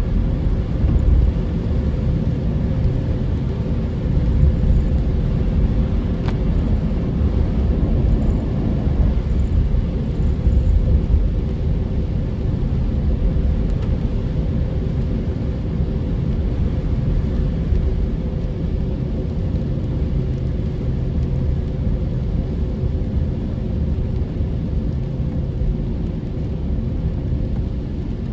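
Car cabin noise while driving on a wet road: a steady low rumble of tyres and engine.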